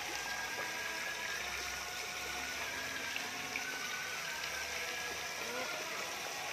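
Steady sloshing and churning of pond water as a dense crowd of goldfish carp thrashes at the surface around a hand.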